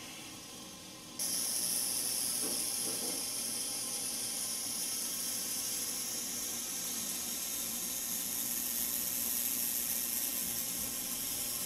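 Small phone vibration motor running on a tiny wire-legged toy robot, shaking it across a wooden tabletop: a steady, hissy buzz that jumps suddenly louder about a second in.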